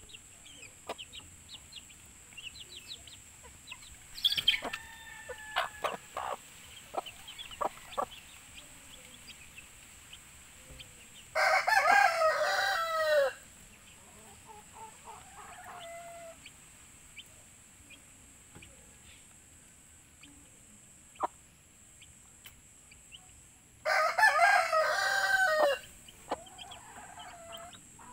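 Chicks peeping with short high cheeps and a hen clucking now and then, while a rooster crows twice, each crow about two seconds long: first about eleven seconds in, again about twelve seconds later.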